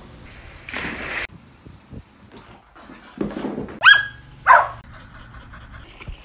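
Springerdoodle puppy giving two high-pitched barks, about half a second apart, some four seconds in. A short burst of noise comes about a second in.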